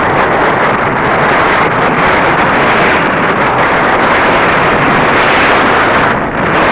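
Loud, steady wind buffeting the microphone, a continuous rumbling roar.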